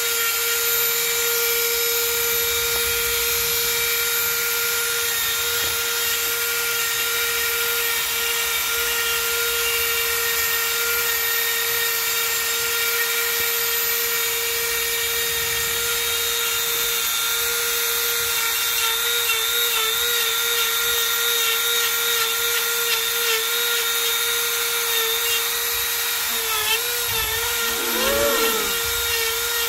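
Dremel rotary tool driving a flex-shaft handpiece, a carving bit grinding into wood with a steady high-pitched whine. Near the end the pitch wavers and dips briefly.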